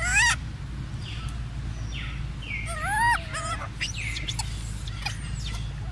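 Short squeaky calls from a macaque, rising and falling in pitch: a brief one at the very start and a longer one about three seconds in.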